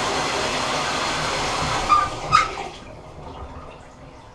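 Water running hard from a bathtub faucet into a plastic canister, then the faucet shut off with two knocks about two seconds in, after which the water stops.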